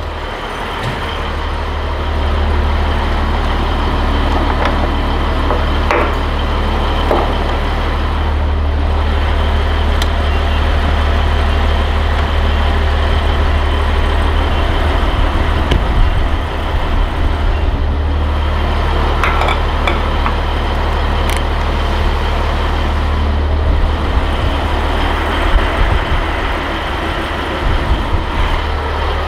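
Diesel truck engine idling steadily, a deep, even rumble, with a few scattered sharp clicks and knocks.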